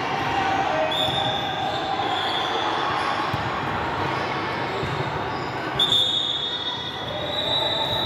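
Basketball game in a large echoing sports hall: a ball bouncing and sneakers squeaking on the court over a steady background of distant voices.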